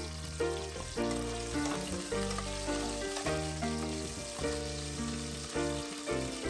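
Onion pieces sizzling as they fry in oil in a saucepan, under background music with a steady beat.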